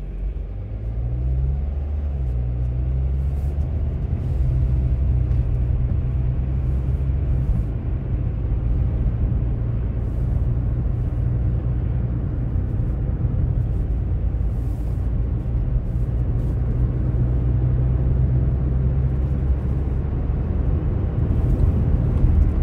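Car driving: a steady low rumble of engine and road noise heard from inside the car, the engine note rising briefly about a second in.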